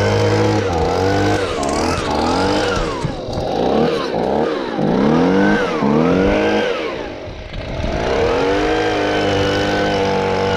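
Stihl BG55 hand-held leaf blower's two-stroke engine, running on a newly fitted aftermarket carburetor, revved up and down again and again on the throttle, then held at a steady high speed from about eight seconds in.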